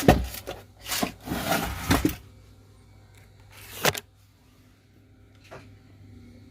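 Handling noises on a workbench: a run of scraping and rustling in the first two seconds, a sharp click near four seconds and a fainter one later, over a faint steady low hum.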